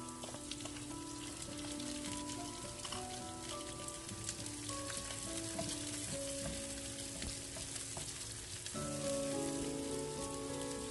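Sliced onion, garlic and ginger sizzling and crackling steadily in hot oil in a frying pan as a wooden spatula stirs them. A soft instrumental tune plays underneath.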